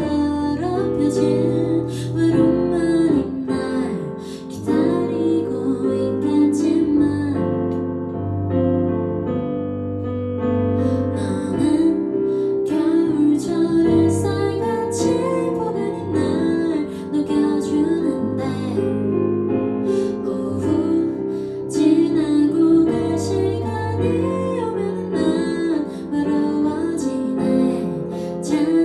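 A woman singing a Korean ballad while accompanying herself on a Kurzweil keyboard with a piano sound.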